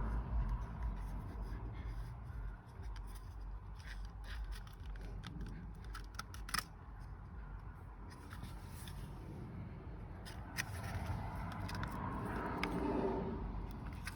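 Scattered light clicks and short scrapes of parts and hand tools being handled during a vehicle dash teardown, over a steady low hum.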